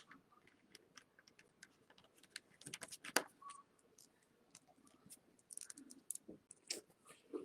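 Faint, scattered small clicks and taps of a vintage 3.75-inch G.I. Joe figure's plastic parts being handled as its arms are fitted into the torso, with the sharpest click about three seconds in.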